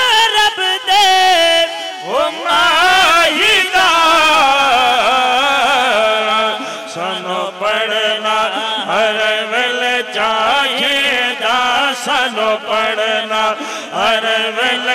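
Two men singing a naat, an Islamic devotional song, into microphones, with ornamented lines that bend up and down in pitch. From about six seconds in, a low steady note is held under the melody.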